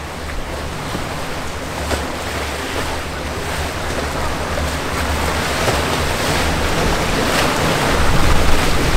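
Churning, turbulent canal water rushing and splashing, with wind buffeting the microphone in a low rumble; it grows louder near the end.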